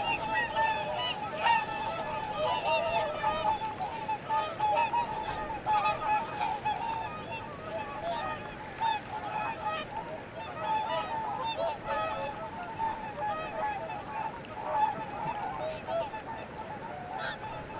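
A large flock of waterfowl calling continuously, many short honking calls overlapping into a steady chatter.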